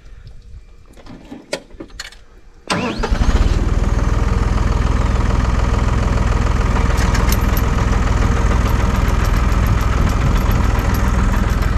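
A motor starts abruptly, with a short rising whine, a little under three seconds in and then runs steadily.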